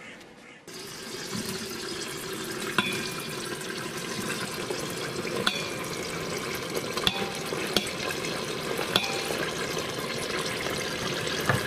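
Diced onions sizzling in hot oil in an electric pressure cooker's inner pot on its sauté setting, starting suddenly under a second in. A knife taps and scrapes on a plastic cutting board about five times as the onions are pushed into the pot.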